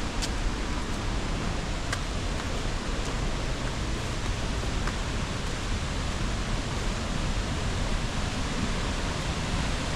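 Steady rushing of a waterfall and its river, an even, unbroken noise.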